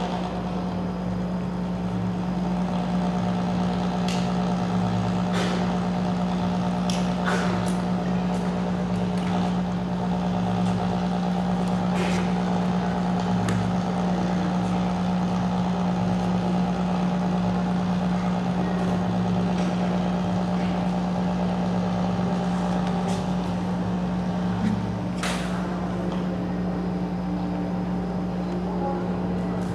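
Steady electronic drone from a tabletop sound setup being adjusted by hand: a strong low hum with a faint pulsing beneath it, scattered clicks and scrapes, and a short hiss near the end.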